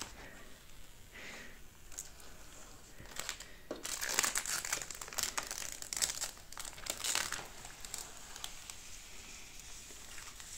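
Packaging material crinkling and crackling as it is handled by hand, faint at first, then dense for a few seconds in the middle before easing off.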